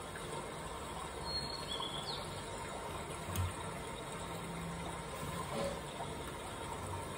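Steady background hum and hiss, with a faint short chirp about a second and a half in and a soft knock a couple of seconds later.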